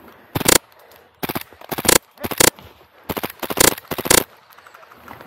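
Airsoft gun firing about seven short full-auto bursts of rapid sharp cracks in quick succession, the last one ending a little after four seconds in.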